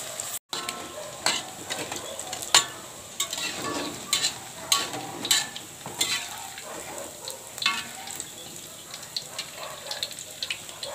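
Tempeh cubes deep-frying in hot oil in a metal wok, with a steady sizzle. Repeated sharp clinks and scrapes come from a metal skimmer stirring the tempeh and lifting it out of the wok.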